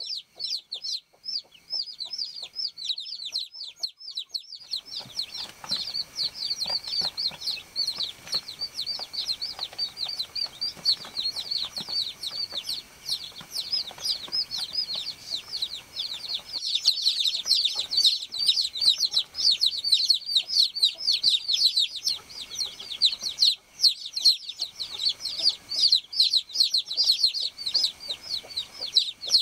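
Many baby chicks peeping continuously: rapid, overlapping high chirps that each fall in pitch, growing denser and louder a little past halfway through.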